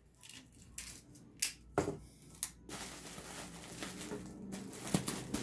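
Plastic bubble wrap being folded and handled, crinkling and rustling with sharp crackles in the first half and a steadier rustle later on.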